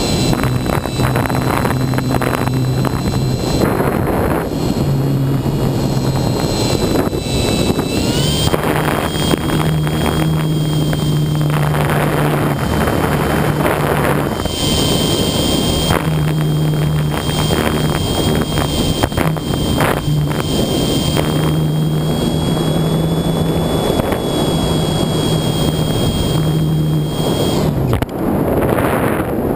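A model plane's motor and propeller whining steadily through heavy wind rush on the onboard camera's microphone. The whine drops in pitch about eight seconds in and cuts out near the end as the motor stops and the plane glides.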